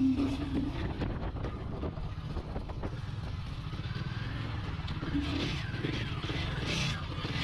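Royal Enfield 450's liquid-cooled single-cylinder engine running steadily under way, a continuous low rumble.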